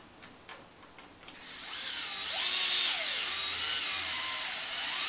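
Cordless electric screwdriver with a 2.5 mm hex bit driving a long screw through the tie rod into an RC truck's plastic steering knuckle until it is good and tight. A few light clicks come first, then about a second and a half in the motor starts a whine whose pitch wavers and dips as the screw runs in and takes load.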